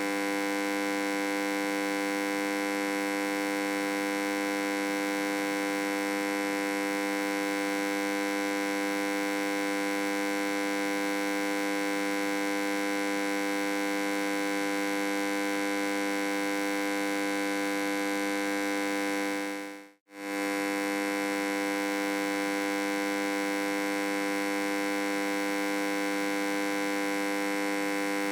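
Electric hum: a steady buzzing tone rich in overtones that holds one pitch, dropping out for a moment and coming straight back about twenty seconds in.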